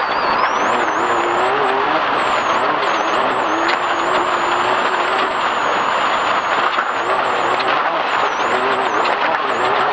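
Off-road race vehicle's engine running hard over a rough dirt trail, its pitch wavering up and down with the throttle, under a loud, dense wash of wind, tyre and chassis rattle noise with occasional sharp ticks.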